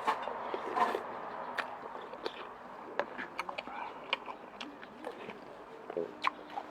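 Close-up mouth sounds of a person chewing and eating Mama instant-noodle soup with stewed beef: irregular wet smacks and clicks, a few a second.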